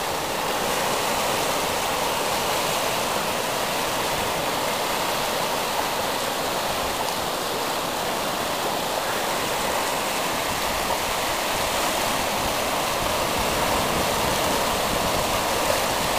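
Steady wash of small ocean waves breaking and running in over shallow surf.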